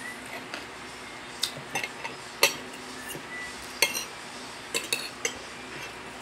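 Metal cutlery clinking and tapping against a plate while eating: about eight short, sharp clinks at uneven intervals, the loudest about halfway through.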